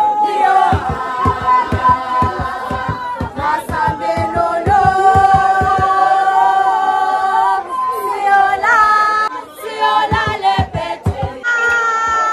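A group singing a song together in chorus, with a drum beaten with a stick in a steady beat beneath the voices. A new, higher sung line comes in near the end.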